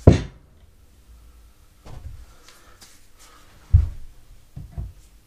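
Several knocks and thumps of a mobility scooter wheel being handled and pushed onto its keyed axle shaft. The loudest knock comes right at the start and another strong thump about three and a half seconds in.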